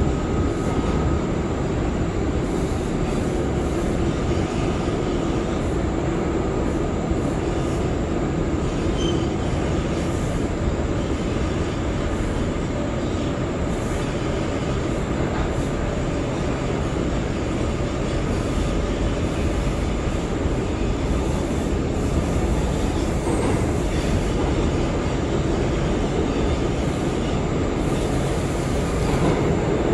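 R179 subway train running at speed, heard on board: a steady loud rumble of wheels on rail with a faint steady whine running through it.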